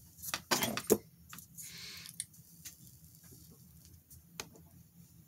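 A person smoking a cigarette close to the microphone. Rustles and sharp clicks of hand movement come in the first second, then a soft breathy hiss of smoke about two seconds in, and after that only faint scattered ticks.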